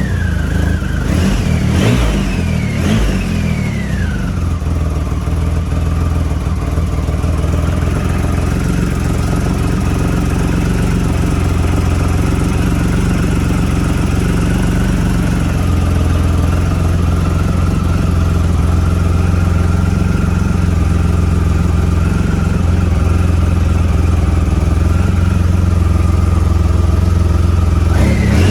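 2009 Triumph Rocket 3's 2.3-litre inline-three engine running: a few quick throttle blips in the first four seconds, each falling back, then it settles to a steady idle.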